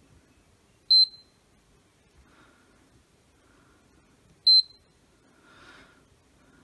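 Digital multimeter giving two short, high beeps about three and a half seconds apart. This is its continuity/diode-test beep, sounding as the probes touch the pins of the power MOSFETs on a brushless drill's controller board while they are checked for a short.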